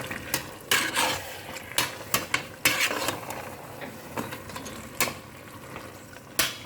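A cooking spoon stirring raw chicken pieces into thick masala in a pot, with irregular scrapes and knocks against the pot over a faint sizzle.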